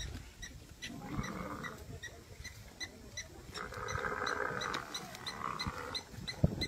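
Animal calls: two drawn-out rough calls, the second longer, over a steady chirping about three times a second.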